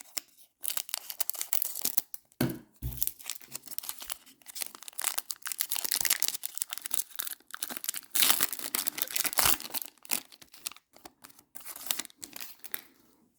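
Trading card pack wrapper crinkling and tearing as the pack is ripped open, in irregular crackles.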